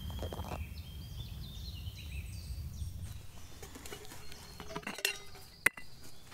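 Metal clinks of a camping kettle's lid being lifted off and set down, a couple of sharp clicks near the end with the loudest just before the end.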